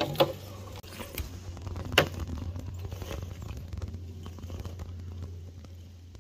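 Scale RC rock-crawler truck clambering over loose stones: irregular clicks and clatter of tyres and rock, with a sharp knock about two seconds in, thinning out later.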